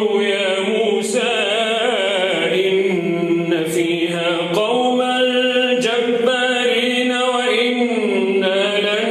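A solo male voice reciting the Quran in melodic tajwid style, drawing out long, wavering held notes with brief breaks between phrases.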